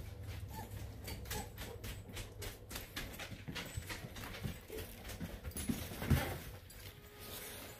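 Dogs moving about among young Lycan Shepherd puppies in a whelping box: a few faint puppy whimpers in the first second or so, then a quick run of short scuffling and sniffing noises, and one thump about six seconds in.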